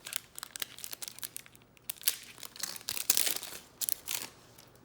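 Trading card pack wrapper crinkling and tearing as a fresh pack is torn open by hand, in quick irregular crackles.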